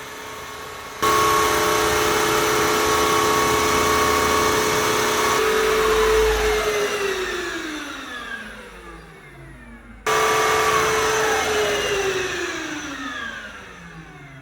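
Vmai V8 Pro wet-dry vacuum's motor running in its self-cleaning cycle on the base. It starts abruptly about a second in, runs steadily with a whine, then winds down with a falling pitch. It starts again about ten seconds in and winds down once more.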